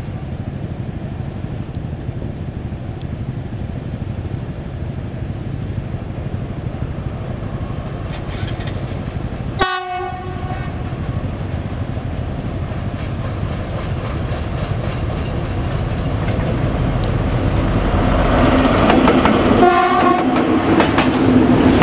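Diesel freight trains: a locomotive's engine running as it approaches with its wagons, then, after a cut, another train passing close and growing louder. Its horn sounds for several seconds near the end.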